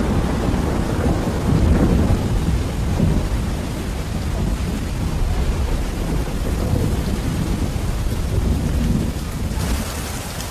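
Heavy tropical thunderstorm: a steady downpour of rain over a continuous low rumble of thunder. About a second before the end the rain turns to a sharper, brighter hiss.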